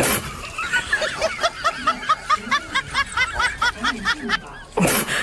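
High-pitched giggling sound effect: a fast run of short, squeaky notes that each rise and fall, several a second. A short, loud rush of noise comes at the start and again near the end.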